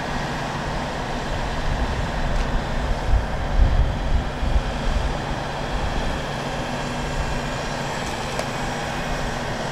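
Engine of the dewatering pump set running steadily with a low hum, with irregular louder low rumbling through the middle.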